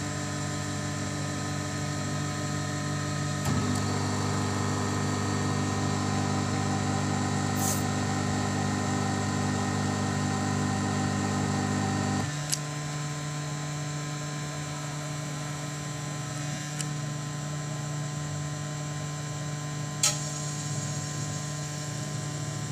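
Electric motor and gear drive of a pig-roasting spit machine running with a steady hum. The hum grows louder and fuller about three and a half seconds in, drops back suddenly about twelve seconds in, and a few sharp clicks follow later.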